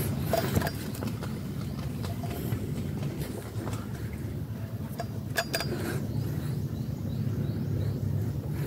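A steady low motor drone, with a few sharp clicks around the middle.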